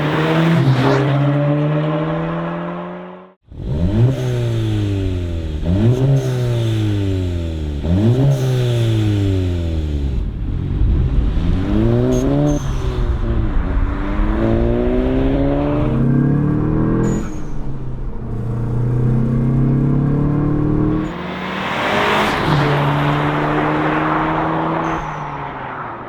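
Volkswagen GTI's turbocharged 2.0-litre four-cylinder engine revving through its exhaust. The revs climb quickly and fall back again and again, with a short break about three seconds in, then slower, longer rises and a steadier stretch near the end.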